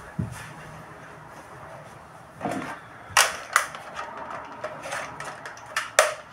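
Sharp plastic clicks and knocks as a hair dryer and its cord are handled, the loudest about three seconds in and again near the end, over a faint steady hum.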